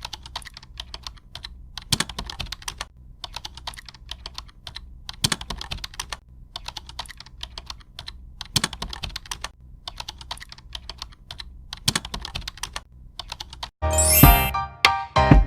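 Typing on a computer keyboard: a run of irregular, quick key clicks, with louder strokes now and then. Music with a clear melody comes in near the end and is louder than the typing.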